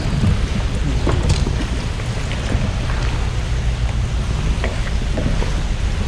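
Wind buffeting the microphone in a steady low rumble, with a few light knocks.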